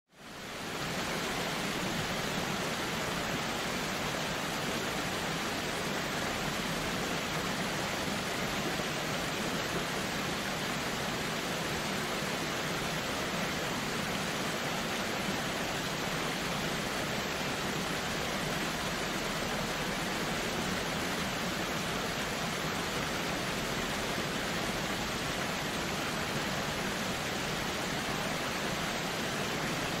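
Waterfall rushing in a steady, even hiss with no distinct splashes, fading in over the first second.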